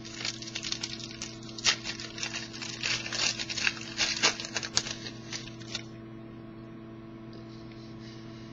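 Rapid, irregular light clicks and taps for about six seconds, then they stop, leaving a steady low electrical hum.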